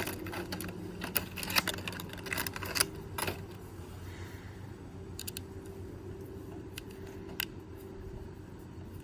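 Plastic electric bike horn being handled, with scattered clicks and light plastic knocks: several in the first few seconds, then a few sparse ones, over a faint steady hum. The horn itself does not sound.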